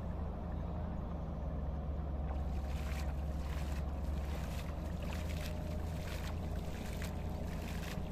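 Shallow pond water splashing and sloshing as a cast net is hauled in through it, the splashes coming thick from about two seconds in, over a steady low rumble.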